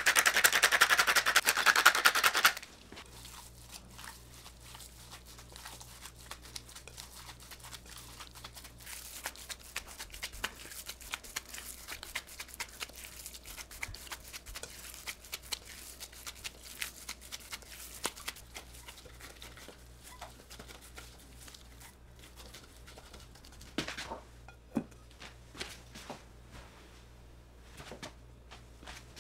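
A pepper mill grinding black pepper for about two and a half seconds, a loud, dense crackling rasp. Then a gloved hand kneading minced pork seasoning in a bowl: many soft, irregular squishes and small clicks, with a couple of louder knocks near the end.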